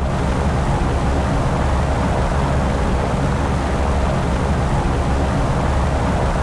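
Steady drone of the piston engines of a formation of four-engined bombers in flight: a deep, wavering rumble under a broad hiss.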